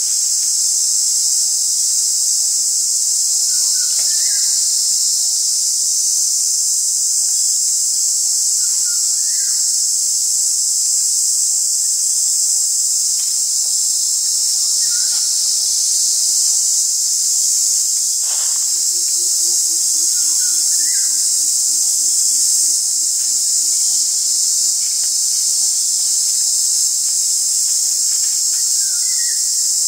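Loud, steady, high-pitched drone of insects in a forest. A short chirping call comes every five seconds or so, and just past halfway a low pulsing trill runs for several seconds, sinking slightly in pitch.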